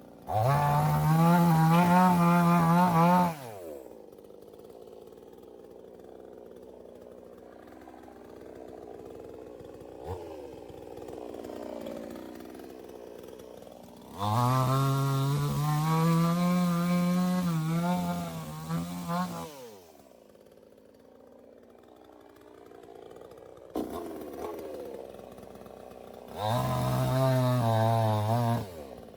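Chainsaw run at full throttle in three bursts of a few seconds each, cutting tree branches, with the engine pitch falling back to idle after each burst and idling between them.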